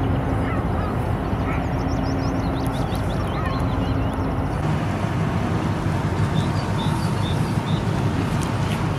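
Steady outdoor background noise with a low hum that stops about halfway through, and short bird calls scattered over it.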